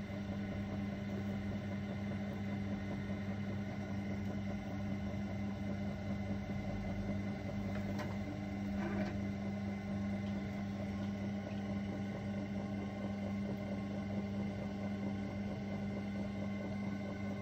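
Electric potter's wheel motor running slowly with a steady hum, with a faint tick or two about eight and nine seconds in.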